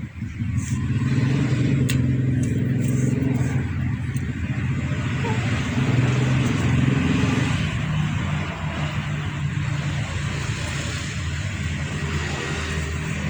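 A vehicle engine running steadily: a low hum under an even hiss.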